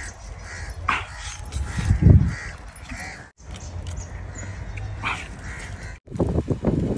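Animal calls repeating over a steady low rumble, with a loud low thump about two seconds in.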